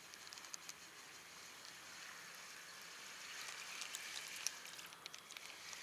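Faint water noise with small ticks and splashes as a lure is retrieved across the surface of shallow, weedy water, swelling a little from about two seconds in.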